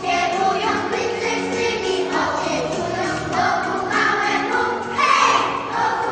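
Children's choir singing a Polish Christmas carol (kolęda).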